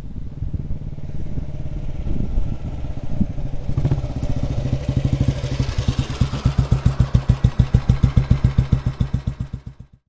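2008 Royal Enfield 350 Bullet's cast-iron single-cylinder engine comes up close, then settles into a slow, even exhaust beat of about six pulses a second, typical of a thumping single at idle. The sound fades out near the end.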